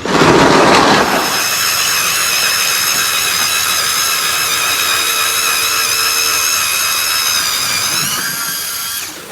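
Power ice auger drilling a hole through lake ice: a loud first second, then a steady motor whine whose pitch shifts shortly before it stops about nine seconds in, as the hole is finished.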